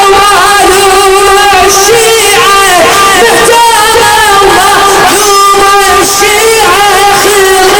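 A man chanting a Shia mourning lament, holding long wavering notes with ornamented turns between them.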